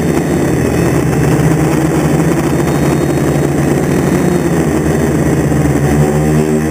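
DJI F450 quadcopter's four Xaircraft brushless motors and 10-inch propellers running as it hovers, heard from the onboard camera. The pitched hum wavers through most of the stretch and settles into a steady pitch near the end.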